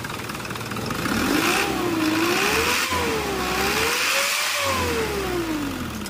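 Isuzu 4HL1 four-cylinder diesel engine, freshly fitted with four new injectors, running and being revved: the revs climb in a few swells, then fall back toward idle near the end.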